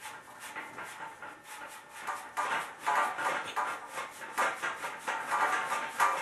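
Fiberglass abrasive mesh scrubbing the end of a 3/4 inch copper pipe in quick back-and-forth rasping strokes, cleaning the copper bright before flux and solder. The strokes grow louder about two seconds in.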